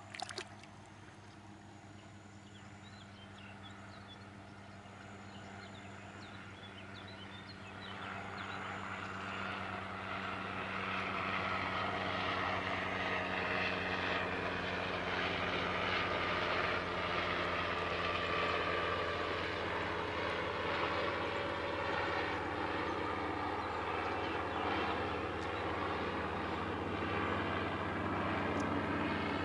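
A steady engine drone that grows steadily louder from about a quarter of the way in and then holds, with a brief sharp click right at the start.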